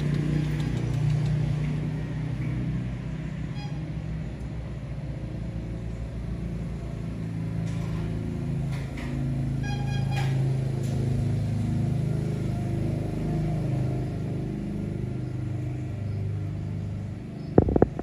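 An engine runs with a steady low rumble that drifts up and down in pitch, likely machinery from nearby building work. Two short high tones sound at about four and ten seconds in, a few knocks come between about eight and ten seconds in, and there is a sharp click near the end.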